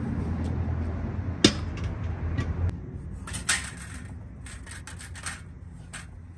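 Metal exhaust manifold gasket being worked off the cylinder-head studs of a Toyota Camry 2.4 engine: a quick run of light metallic clicks and scrapes. Before it, a low steady hum with one sharp click, cut off short about three seconds in.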